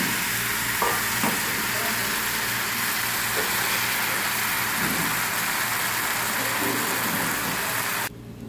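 Thin tuile batter of flour, oil and water sizzling steadily in a hot frying pan as it bubbles into a lacy wafer. Two light knocks come about a second in, and the sizzle cuts off suddenly near the end.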